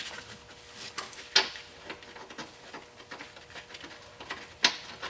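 Light clicks and taps of a steel nut and bolt being handled while the nut is fitted onto the tension control rod's mounting bolt, with two sharper clicks, one about a second and a half in and one near the end.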